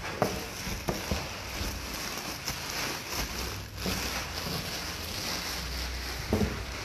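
Rustling handling noise over a steady rushing hiss from plastic-bagged boxing gloves being moved about in a cardboard box, with a few light knocks in the first second and another knock about six seconds in.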